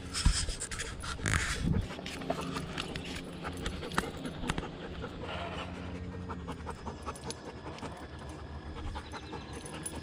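A dog panting, with scattered clicks and crunches and a loud rustling stretch in the first two seconds.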